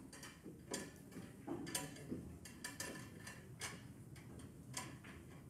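Billiard balls clicking on a pool table: a cue strike followed by ball-on-ball and cushion clicks, a string of faint, sharp ticks spread over a few seconds.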